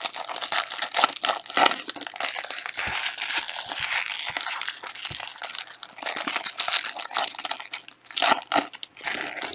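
Trading card pack wrappers being torn open and crumpled by hand. There is a busy, continuous run of crinkling and rustling, with a brief lull about eight seconds in.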